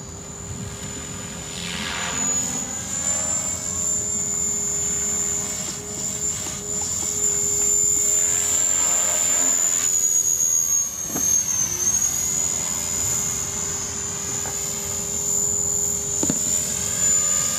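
Radio-controlled model helicopter flying: a steady high-pitched whine over a lower hum. The whine dips briefly in pitch about two-thirds of the way through, and the sound swells and whooshes a few times as the helicopter passes close.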